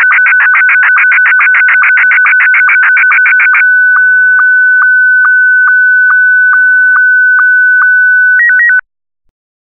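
Slow-scan television (SSTV) signal in Scottie 1 mode, sending the last lines of a picture. At first it is a fast, warbling pulse of scan-line tones, about seven pulses a second. From about three and a half seconds in it becomes a steady tone broken by short ticks a little over twice a second, then a brief run of alternating tones before it cuts off suddenly about a second before the end.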